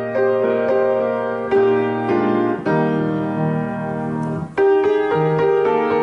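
Background piano music: slow, sustained chords and melody notes, with a brief pause about four and a half seconds in.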